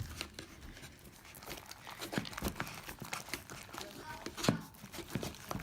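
Hands kneading and pulling sticky fluffy slime: a run of small wet clicks and crackles, with a louder knock about four and a half seconds in.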